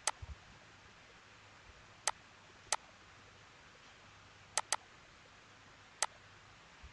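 Computer mouse button clicking, about six single clicks a second or so apart, with a quick double-click about halfway through.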